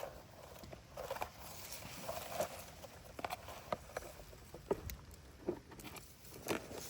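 Scattered light clicks and rustles, one or two a second, over a faint steady background.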